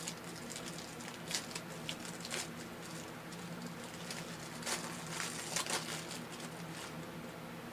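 Trading cards being handled between pulls: soft rustling with a few short, sharp flicks and clicks, over a steady low hum.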